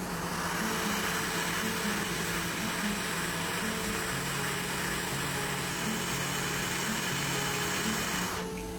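Hot-air rework station blowing a steady rushing hiss of hot air while the PMU IC is reflowed on a MacBook Pro board; it cuts off abruptly near the end. Background music with sustained tones plays underneath.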